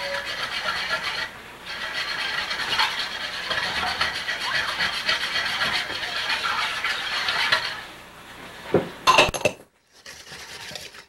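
Wire whisk beating oil into Caesar dressing in a stainless steel mixing bowl, a fast, steady scraping and rattling of the wires against the bowl as the oil is added slowly to emulsify it. It pauses briefly about a second and a half in, and a few sharp louder knocks come near the end before the sound cuts off.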